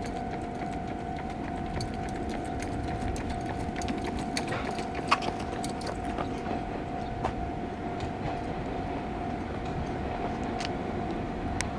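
JR 117 series electric train pulling out and approaching from a distance: a steady low rumble with scattered sharp clicks and knocks from the wheels on the track, the loudest about five seconds in. A thin steady tone runs under it.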